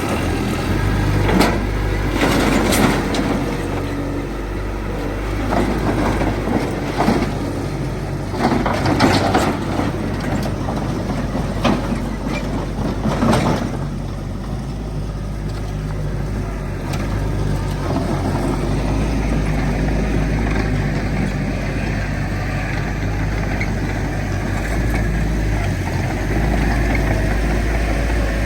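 A heavy diesel engine of earthmoving machinery runs steadily with a deep drone. During the first half there are several sharp metallic clanks and knocks, the loudest about 13 seconds in.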